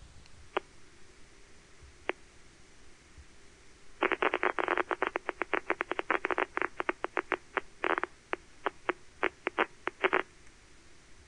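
Spikes of a single rat hippocampal place cell played through an audio monitor as pops: two lone pops in the first couple of seconds, then a dense cluster of rapid, irregular pops for about six seconds that stops suddenly. Each pop is one spike of the cell, and the cluster is the cell firing while the rat is inside its place field.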